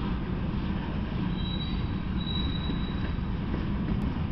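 Freight train of covered hopper and tank cars rolling past: a steady rumble of steel wheels on the rails, with a thin high-pitched wheel squeal from about a second and a half in, lasting about a second.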